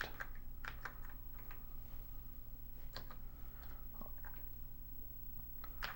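Typing on a Commodore SX-64 keyboard: a scattering of separate key clicks at an uneven pace, over a steady low hum.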